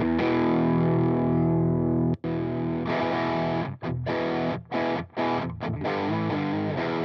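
Electric guitar with overdrive distortion from a JOYO Baatsin multi-overdrive pedal. A held chord rings for about two seconds, then a new chord is struck, followed by short chopped chords with quick stops between them.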